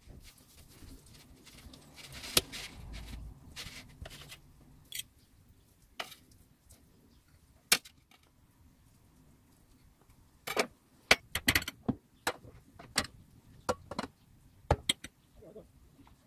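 Metal knife and fork clinking and scraping on ceramic plates while roast beef is carved and served, with a rough scraping stretch early on and a quick run of sharp clinks later.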